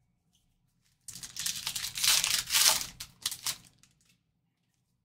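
A trading card pack's wrapper being torn open and crinkled by hand, in a crackling burst of about three seconds that starts a second in.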